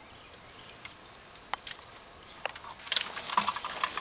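Dry twigs and leaf litter crackling and snapping as someone shifts on the forest floor: a few single snaps, then a burst of irregular crackling near the end.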